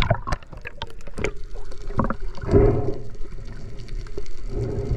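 Water heard through a camera just under the surface as a diver goes in off a boat: a run of sharp splashes and bubble pops in the first second, then muffled gurgling with a louder swell of water noise about halfway.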